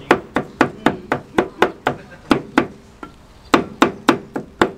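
Two cleavers chopping meat and green pepper directly on an iron griddle: quick, sharp, regular chops at about four a second, with a brief pause about three seconds in before the chopping resumes.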